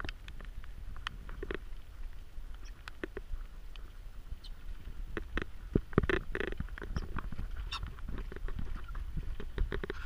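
Pheasant poults, about eight weeks old, moving about inside stacked plastic poultry crates: a stream of irregular small taps, clicks and scrapes from their feet and beaks on the crate floors and sides, busiest about halfway through.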